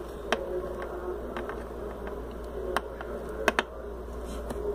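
Small plastic toy figures handled and set down on a table: a few light, sharp clicks and taps over a faint steady room hum.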